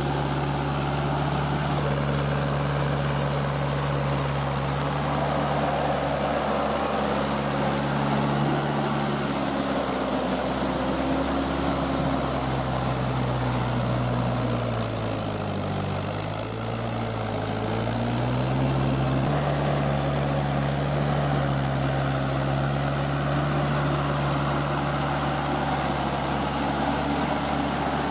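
Mahindra tractor's engine running steadily as it drives cage wheels through puddled paddy mud. A little before the middle its pitch sags, then climbs back up a few seconds later.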